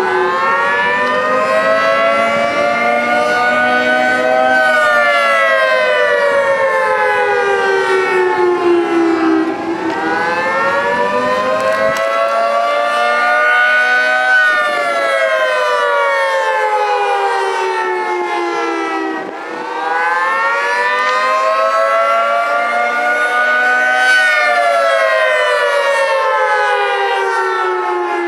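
Federal Signal 3T22 three-tone electromechanical civil defence siren sounding the attack signal: a chord that rises and falls in pitch, one slow wail about every ten seconds.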